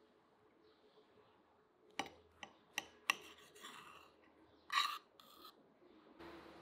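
Knife cutting fresh green figs in half on an earthenware plate: four sharp clicks and a short scrape about two seconds in, then two brief rasping strokes about five seconds in.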